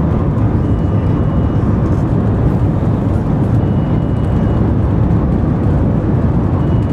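Cabin noise of the Shanghai Maglev (Transrapid) train running at top speed, about 430 km/h: a steady, loud rushing rumble.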